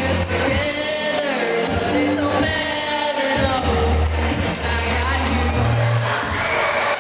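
Two women singing a karaoke duet into microphones over a backing track with a steady bass line.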